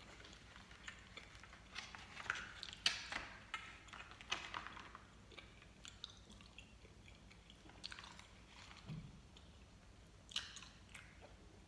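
A person chewing gummy candy sushi, chewy gummy fish and marshmallow: faint, irregular clicking and smacking mouth sounds, busiest in the first few seconds, then sparser with a couple of later bites.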